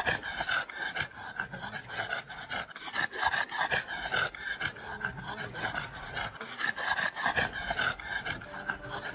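Dog panting in quick, even breaths.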